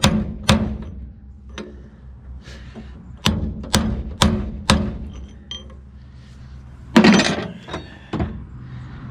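Hammer blows on a brass punch, ringing on steel as new lug studs are driven into a wheel hub flange: two strikes, then a run of four about half a second apart, a louder rattling clatter about seven seconds in, and one last strike.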